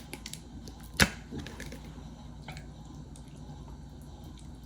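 Kitchen handling noises: one sharp click about a second in and a few fainter clicks, over a faint steady low hum.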